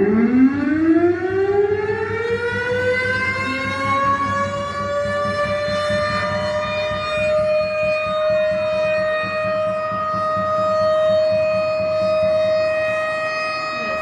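Siren winding up: its tone rises in pitch over the first several seconds, then holds a steady, loud tone to the end.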